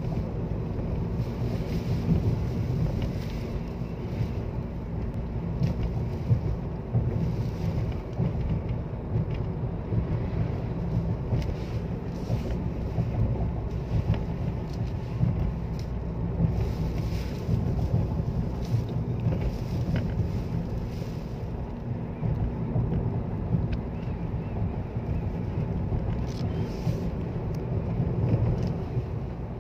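Steady low rumble of a car's engine and tyres on a paved road, heard from inside the cabin while driving through a sandstorm, with wind gusting against the car and brief hissy gusts now and then.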